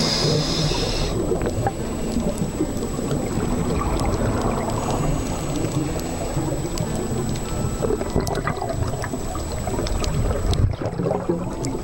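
Muffled underwater noise picked up by the camera: a steady low rumble with scattered faint clicks.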